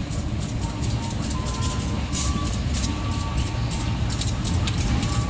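Diesel-electric locomotive of a local passenger train rolling slowly into a station, its engine running with a steady low rumble, with thin intermittent squeals.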